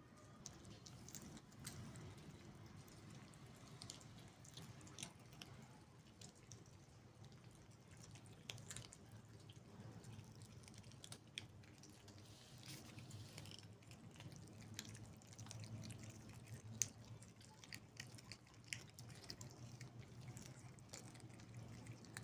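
Several cats chewing scraps of raw meat: faint, scattered wet clicks and smacks of jaws and teeth, with one sharper click about three-quarters of the way through.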